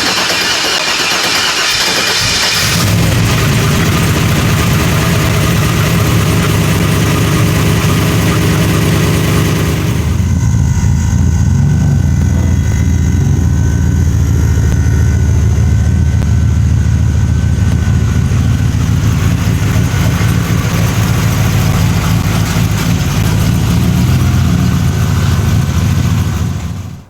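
Turbocharged 5.3 V8 in a Volvo 240 running at a steady idle. A hissy rush is heard for the first few seconds before the deep engine note comes in, and the high hiss drops away about ten seconds in. The sound cuts off abruptly at the end.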